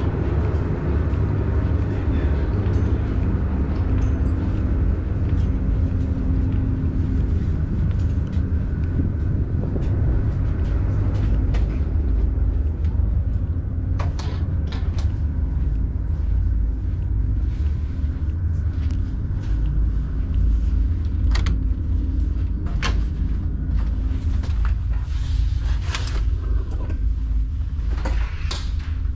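Steady low rumble and hum of a ro-ro ferry's engines and machinery, heard on board. Scattered sharp clicks and knocks come in from about halfway.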